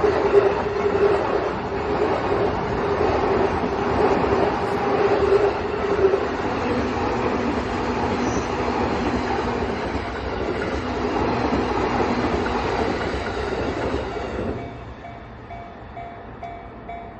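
A JR train passing over a level crossing, with a steady hum under the rumble of the cars, until it falls away about fourteen and a half seconds in. The crossing's warning bell is then left ringing in a quick, even repeat.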